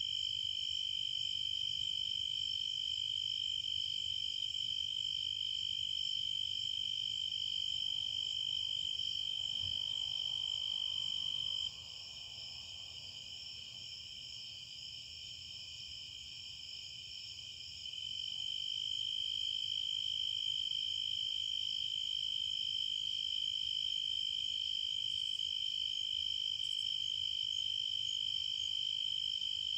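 Crickets trilling in a steady, high-pitched chorus. The loudest trill stops about twelve seconds in and starts again about six seconds later, while fainter, higher trills carry on.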